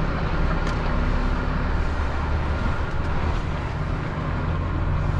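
DAF heavy recovery truck's diesel engine running steadily while under way towing a loaded truck, a steady low drone with road noise.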